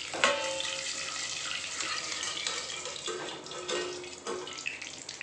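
Curry leaves and tempering spices sizzling and spluttering in hot oil in a covered kadai, a steady dense sizzle. A sharp clink just after the start rings briefly.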